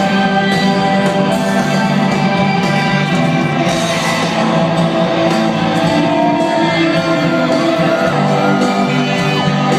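Live rock band playing loud with electric guitars, heard from among the audience, with shouts from the crowd over the music.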